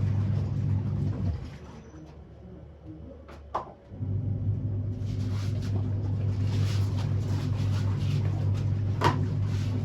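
A small electric motor humming steadily. It stops about a second in and starts again about four seconds in, with a click just before it restarts.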